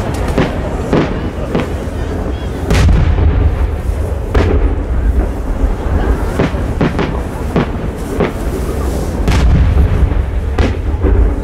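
Japanese aerial fireworks shells going off: about a dozen sharp bangs at irregular intervals, over a steady low rumble.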